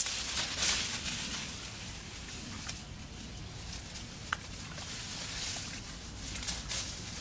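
Leaves and stems rustling as hands push into leafy plants, with a few light clicks and taps, over a low steady rumble.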